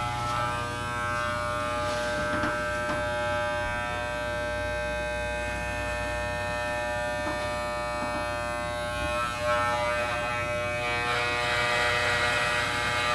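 Corded electric hair clippers running with a steady buzz while cutting hair, held against the head. The buzz gets a little louder and rougher over the last couple of seconds as the blades run through the hair on top.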